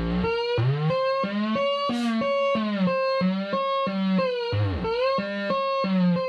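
DIY sound-effects synth playing a buzzy pitched tone chopped into even pulses about four times a second. The pitch slides up over the first two seconds, wavers, then dips sharply and comes back up about five seconds in.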